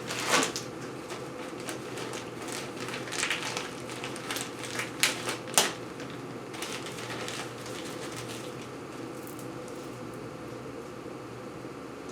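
Loose chainsaw chain being handled and untangled: quick, irregular clinks and rattles of the metal links, busiest in the first half and dying down after, over a steady low room hum.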